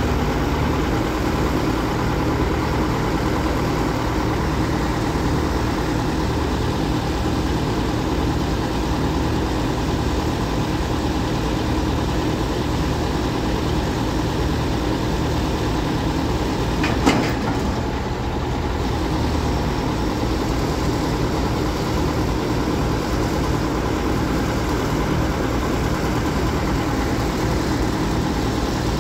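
Truck-mounted water well drilling rig's diesel engine running steadily as it powers the raising of the mast, with one sharp knock about seventeen seconds in.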